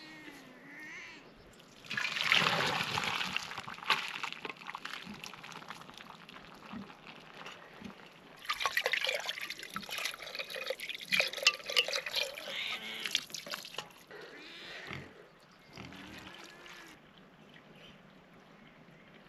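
Water pouring and splashing in two spells, one about two seconds in and a longer one from about eight to thirteen seconds in.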